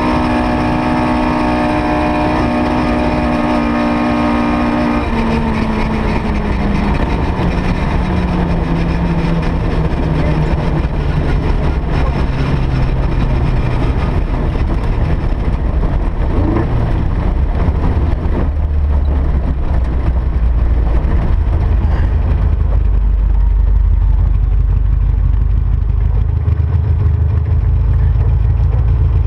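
S1600-class rally car engine heard from the car's onboard camera, holding high, steady revs for the first few seconds. The pitch then falls steadily as the car slows, leaving a low rumble of the engine at low speed.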